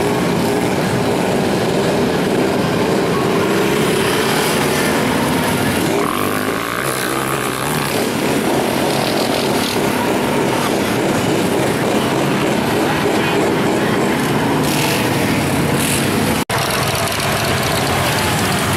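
Engines of off-road mud vehicles running in a steady, loud drone, which breaks off for an instant about sixteen seconds in.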